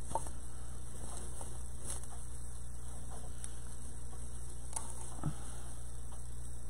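Quiet room tone with a steady low hum and a few faint, scattered ticks of craft materials being handled.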